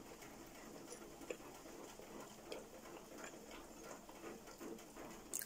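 Faint heavy rain coming through an open window: a soft, even hiss with scattered light ticks like drips.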